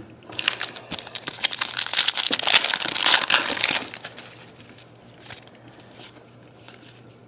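Foil wrapper of a basketball trading-card pack crinkling loudly as it is torn open, for about four seconds. It is followed by faint rustling of the cards being handled.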